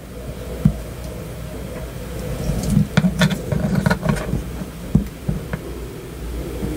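Close-up handling noise of fingers rubbing and pressing on a small diecast model truck, with a few light clicks of a metal dental pick against the headlight around the middle, over a low steady hum.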